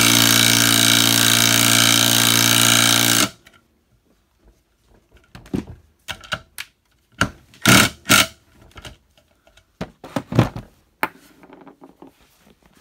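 Milwaukee cordless impact driver hammering a screw into a wood block for a little over three seconds, then stopping suddenly. A few scattered knocks and clicks follow.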